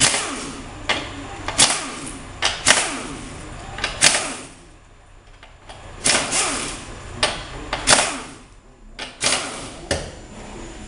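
Air ratchet run in several short bursts, spinning out bolts on the valve-body side of a Turbo Hydra-Matic 350 transmission case, with a quieter pause about halfway through.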